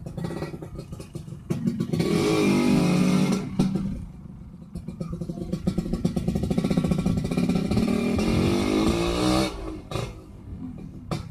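Yamaha RX-King's two-stroke single-cylinder engine through an aftermarket under-slung exhaust, pulling hard twice while riding. Each pull rises in pitch and then eases off to quieter running. The exhaust has an odd note that the owner suspects comes from a wrongly set header pipe.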